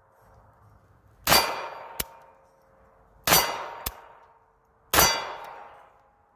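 Three shots from a Ruger LCP .380 pocket pistol, about two seconds apart, each followed by a ringing tail. A sharp click comes shortly after the first two shots. The pistol is failing to cycle on its own even after a thorough cleaning.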